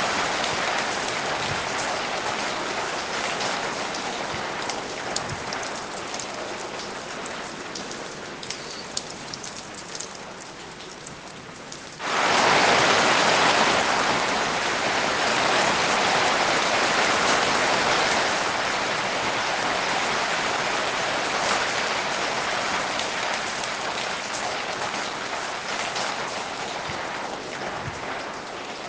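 Steady rain falling, with scattered individual drops ticking through it. It slowly eases, turns abruptly much louder about twelve seconds in, then slowly eases again.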